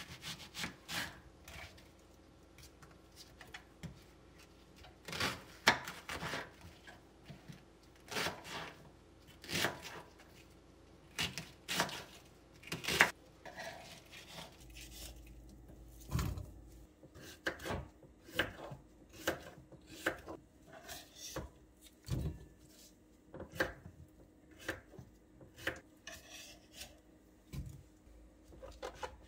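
Kitchen knife cutting an onion, then a zucchini, on a wooden cutting board: irregular knocks of the blade on the board, a few of them sharper and louder.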